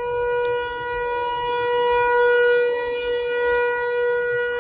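Whelen Vortex outdoor tornado siren sounding its steady alert tone, held on one pitch and slowly swelling and fading in loudness.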